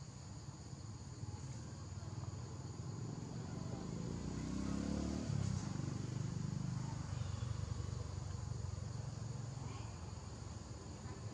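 Insects chirring steadily as a high, continuous outdoor background, with a low rumble underneath that grows louder in the middle.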